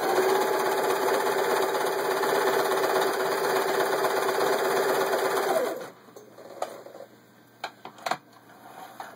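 Singer 353 Genie zigzag sewing machine running steadily at speed, sewing a zigzag stitch, then stopping about six seconds in. A few light clicks and knocks follow.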